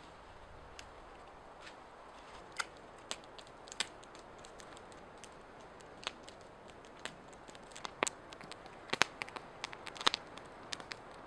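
Wood fire crackling: irregular sharp pops over a faint steady hiss, coming more often and louder in the second half.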